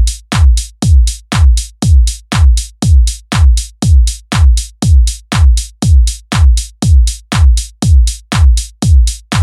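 Electronic dance beat: a single drum-machine kick hit repeated evenly, about two a second. Each hit is a deep boom falling in pitch with a bright crack on top, and nothing else plays between the hits.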